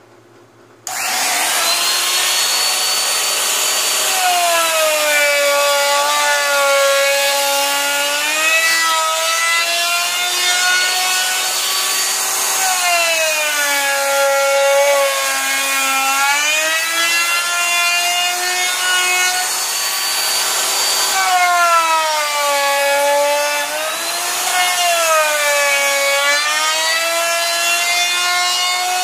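Handheld wood router with a roundover bit, switched on about a second in and spinning up to a high whine. Its pitch sags three times as the bit cuts around the edges of holes in a plywood brace and climbs back between cuts.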